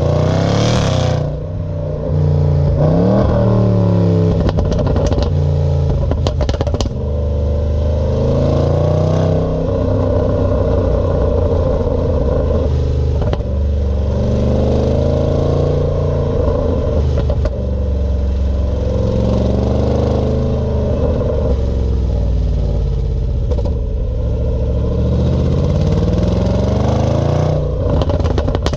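Range Rover SVR's supercharged V8 through its standard exhaust, revving up again and again, each climb lasting a few seconds before the revs drop. The exhaust pops and crackles as the revs fall, most plainly twice: a few seconds in and right at the end.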